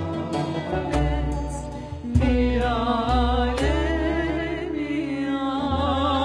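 Female voice singing a Turkish classical song in makam Acem Aşiran and usul Yürük Semai, with vibrato, over instrumental accompaniment.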